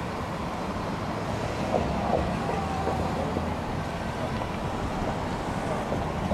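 Wind noise on the microphone over a steady low rumble of distant engines.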